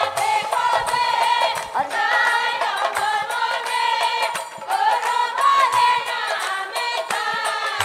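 Live Assamese nagara naam: a woman singing a devotional melody over a steady held instrumental note, with light percussion ticking along.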